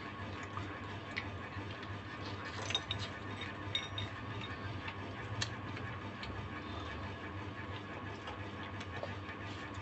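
Quiet eating sounds at a table: scattered small clicks and taps of a spoon in a small cup, with food being handled, over a steady low hum.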